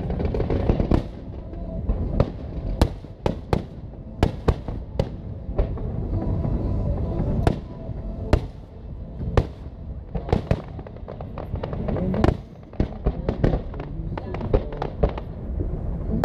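Fireworks display: aerial shells bursting in quick, irregular succession, many sharp bangs over a continuous low rumble.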